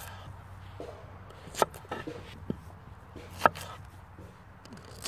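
Knife cutting through small potatoes on a wooden chopping board: a few sharp knocks as the blade meets the board, the two loudest nearly two seconds apart with lighter taps between.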